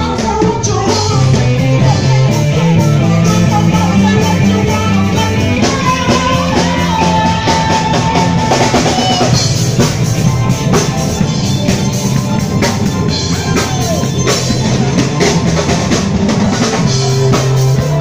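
Live band with a drum kit and bass playing through a stage PA, while a male singer freestyles into a handheld microphone.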